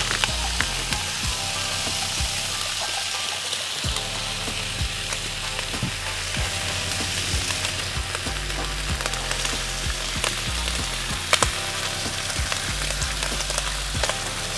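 Hash browns and turkey bacon frying on a hot Blackstone flat-top griddle: a steady sizzling hiss with scattered small pops and ticks.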